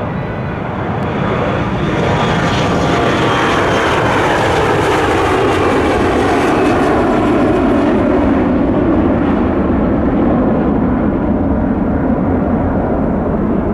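Embraer E-175 regional jet's twin turbofans at takeoff power as it goes past, loud jet noise whose pitch slides steadily down. The high hiss fades in the second half as it moves away.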